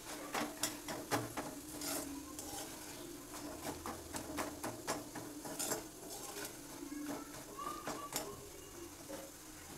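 A metal spoon stirring and scraping a thick sponge gourd and onion-tomato masala mixture in a steel kadhai, with irregular clicks of the spoon against the pan. A soft sizzle comes from the pan on the gas flame, and a faint steady hum runs underneath.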